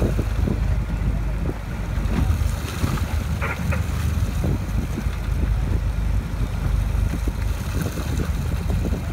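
Boat at sea with a steady low rumble from its engine, wind buffeting the microphone, and choppy water sloshing against the hull.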